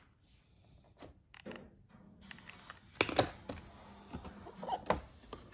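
Unboxing handling noises: a few light taps and clicks of a plastic blister pack and cardboard packaging being handled, the sharpest about three seconds in and another near the end.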